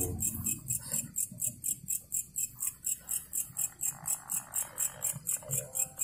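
Night insects chirping in a steady, high-pitched pulse, about four chirps a second. Faint voices murmur briefly now and then.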